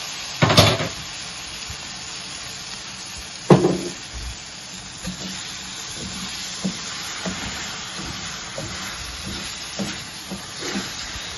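Oiled rice sizzling as it toasts in a paella pan on a gas stove, stirred with a wooden spoon. There are two sharp knocks, about half a second and three and a half seconds in, then lighter regular scrapes and taps of the spoon against the pan.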